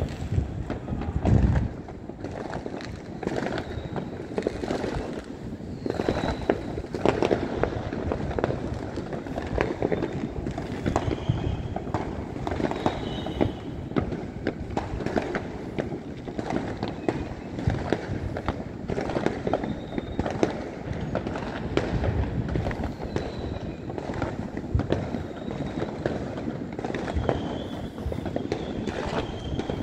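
Lunar New Year fireworks going off all around, a dense rolling patter of distant bangs and pops that never lets up.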